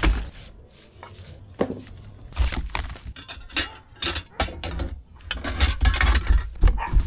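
New chrome motorcycle exhaust pipes being unpacked: protective foam sleeves and plastic wrapping rustling and crinkling, with scattered clinks and knocks as the metal pipes are handled and set down on cardboard.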